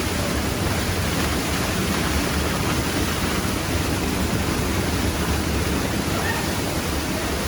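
Waterfall crashing: a steady, loud rush of falling water.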